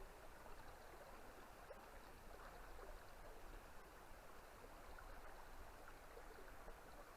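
Faint, steady rush of a large river's flowing water.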